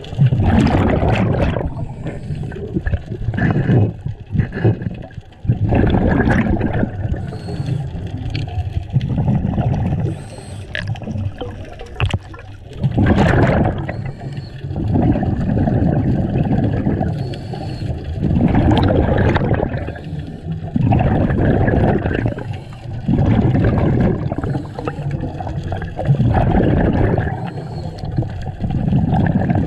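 Scuba diver breathing through a regulator underwater: bursts of exhaled bubbles repeating every two to three seconds.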